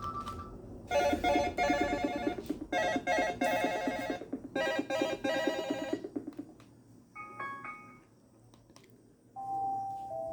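Motorola phone alarm ringtones playing one after another. A rapid buzzing electronic trill sounds in three bursts, then a brief run of high beeps comes about seven seconds in, and a new chiming tone starts near the end.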